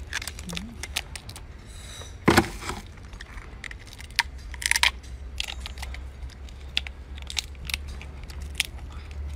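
Cooked lobster shell being cracked and pulled apart by hand and bitten into: a scatter of crackles, clicks and crunches, with a louder crack a little over two seconds in. A steady low hum runs underneath.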